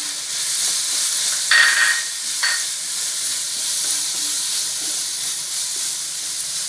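Onion, capsicum and tomato masala sizzling in coconut oil in a kadai as it is stirred, with a spoon scraping the pan twice, the louder about one and a half seconds in and a shorter one a second later.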